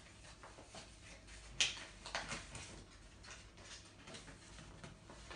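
A sheet of paper rustling and crackling as it is handled and opened, in a few short crackles; the loudest comes about a second and a half in.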